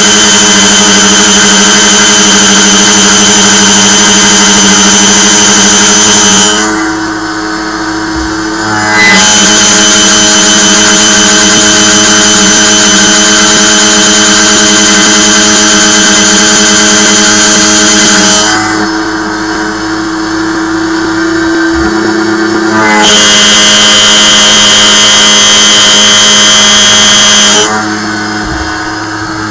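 Sieg KX1 CNC mill cutting 1018 steel with a 1/4-inch two-flute carbide end mill at 5000 rpm: a loud, steady, many-toned screech that eases off three times for a couple of seconds between passes. The cutter is getting dull, which the owner takes for the reason it has grown noisy.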